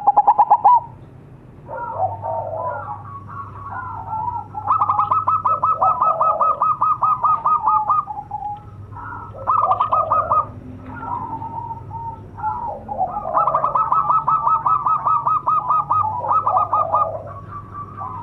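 Zebra doves (perkutut) cooing. Phrases of fast, evenly repeated staccato notes run for about three seconds each, twice, with shorter coos in between, and there is a loud burst of rapid notes right at the start.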